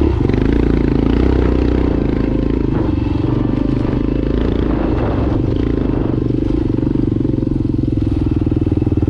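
Motorcycle engine running steadily under way on a sandy dirt track, heard from the rider's own bike.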